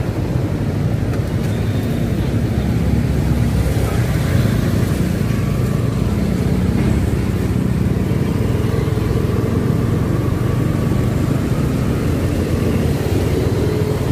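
Motorcycle engine running steadily while riding slowly, heard from the rider's seat, with the hum of surrounding city traffic.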